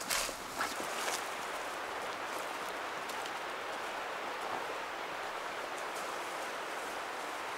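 A few rustling, footstep-like crunches in the first second, then a steady, even rushing noise of outdoor ambience.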